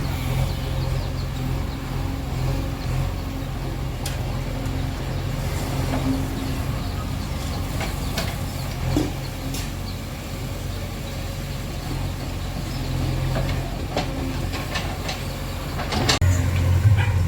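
JCB backhoe loader's diesel engine running steadily, with occasional knocks and clicks. The engine gets louder near the end.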